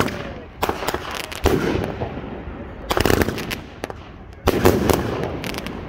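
A 500-gram consumer fireworks cake firing shots into the air: about four volleys of sharp bangs, several in quick succession in each volley, each trailing off into an echoing rumble.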